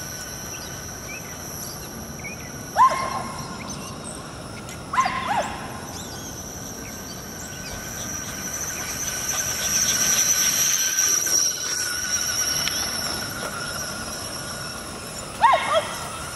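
Boston terriers giving three short, sharp barks, about three seconds in, at five seconds and near the end, over the steady high whine of a radio-controlled monster truck's motor, which grows louder in the middle as the truck runs close.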